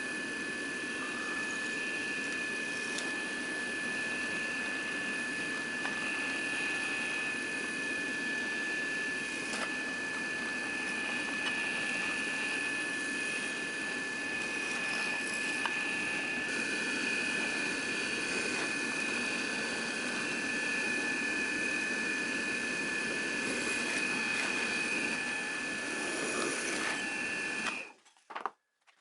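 A small electric power tool running steadily with a high-pitched whine over a rushing hum, cutting off abruptly near the end.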